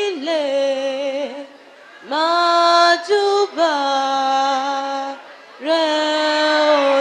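A woman singing slowly and unaccompanied in long held notes with vibrato. There are three phrases, with short breaks after about a second and after about five seconds.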